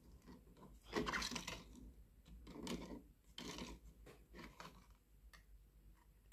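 Faint clicks, scrapes and sloshes of tweezers fishing a circuit board out of a plastic bucket of liquid tin-and-nickel stripping solution. There are a few short scraping rustles in the first two thirds, then single light clicks near the end.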